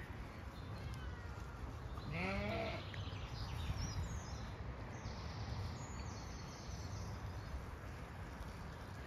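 A Zwartbles sheep bleats once, a short wavering call about two seconds in, over a steady low rumble.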